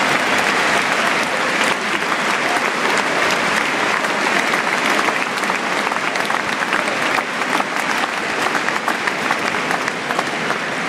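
Large football-stadium crowd applauding, with individual hand claps from fans close by standing out over the mass clapping.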